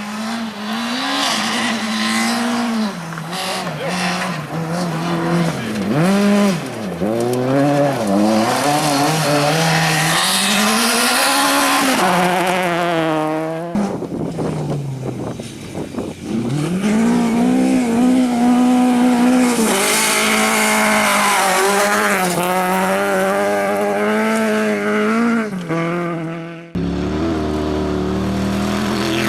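Rally car engine being driven hard, its pitch repeatedly climbing under acceleration and dropping back between gear changes and corners. The sound changes abruptly about halfway through and again near the end.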